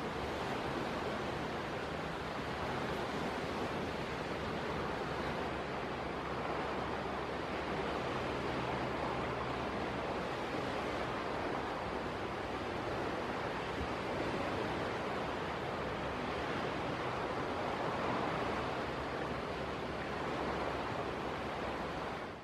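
Steady rushing outdoor wash of wind and surf from the open bay, rising and falling slightly in level.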